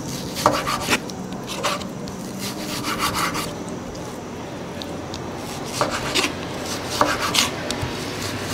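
Chef's knife chopping salmon on a wooden cutting board: irregular knocks and scrapes of the blade against the board as the fish is minced small.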